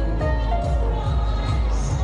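Music with a steady pulsing bass beat under a melody of held notes.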